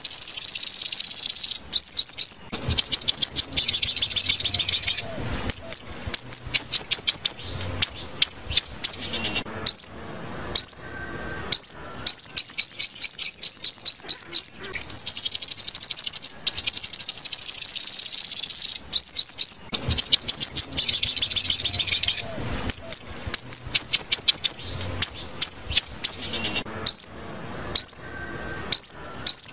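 Sunbird song played as a lure recording: a high, dense trill, then runs of quick down-slurred chirps and scattered single notes. The same sequence comes round again about halfway through.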